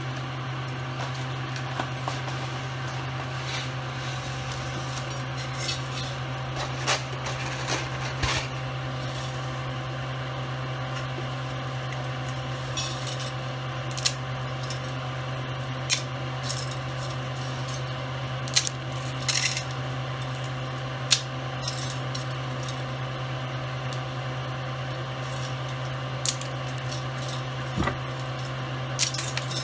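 Dry spaghetti being handled in a stainless steel pot: scattered sharp clicks and snaps every few seconds, over a steady low hum.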